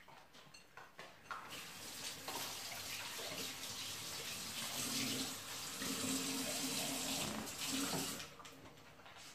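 Water running steadily for about seven seconds, starting about a second in and stopping near the end.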